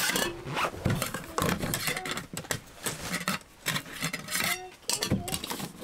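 Nested metal camping pots and lids clinking, scraping and knocking against each other as the cook set is taken apart and set down piece by piece.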